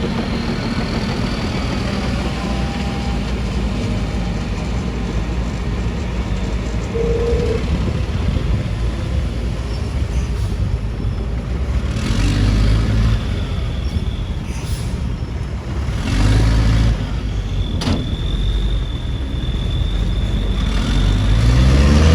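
Heavy diesel construction machinery running steadily, the engine swelling under load three times and rising in pitch near the end. A thin, high steady squeal runs for a few seconds in the later part.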